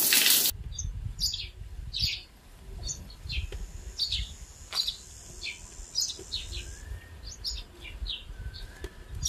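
Shower water running, cut off abruptly about half a second in, then small birds chirping in many short, quick calls over a low rumble.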